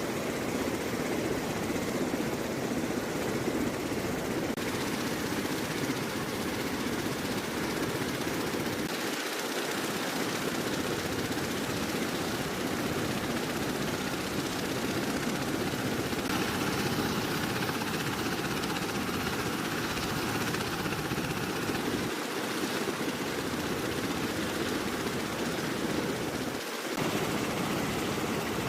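Bell Boeing V-22 Osprey tiltrotor aircraft running: a steady, dense rotor and engine noise with no clear beat, which shifts abruptly in tone several times.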